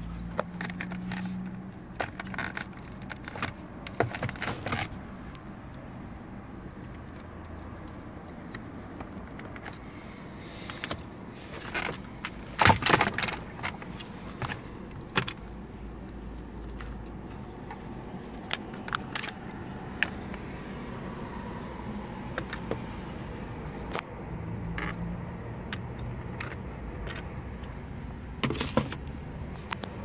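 Scattered sharp plastic clicks and rattles as a steering-column clock spring and its connectors are handled, with a loud cluster of clicks a little before halfway and another near the end.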